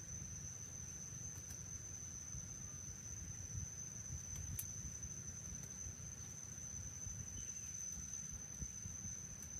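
Steady high-pitched insect trill over a low rumble, with a few faint clicks.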